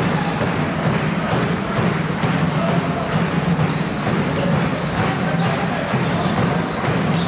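Basketball game sound: a basketball bouncing on the hardwood court as it is dribbled, over a steady murmur of crowd chatter.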